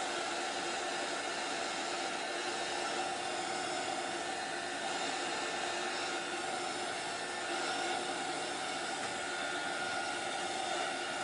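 Handheld craft heat tool blowing hot air steadily, a constant hiss with a humming tone, drying freshly applied chalk paste.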